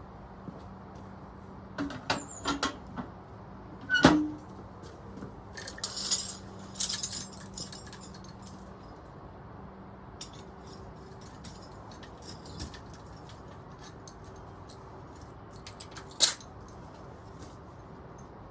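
Scattered metallic clinks and knocks of tools and gear being handled, about half a dozen over the first seven seconds, with the loudest about four seconds in and one more near the end, over a quiet background.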